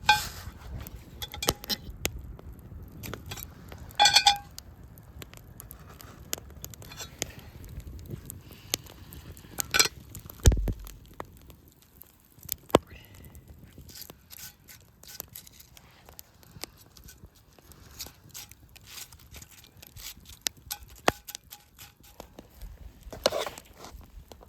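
Cast-iron cookware and utensils clinking and knocking, with a few brief metallic rings, over scattered small crackling clicks of a campfire. A dull thump about ten seconds in and a short scraping rustle near the end.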